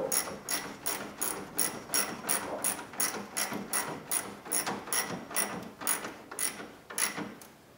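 A ratchet clicks in a steady run of about three to four clicks a second as the nut on the grille's top mounting stud is tightened down. The clicks slow and stop shortly before the end.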